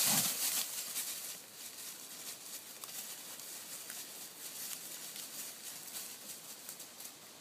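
Footsteps crunching and rustling on a woodland path littered with leaves and twigs, as a quick run of small crackling steps, loudest in the first second and then softer and steady.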